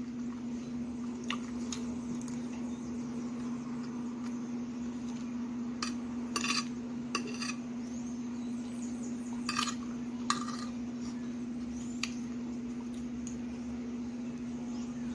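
Eating utensil clinking against a plate or bowl of curry, a few scattered sharp clinks with pauses between them, over a steady low hum.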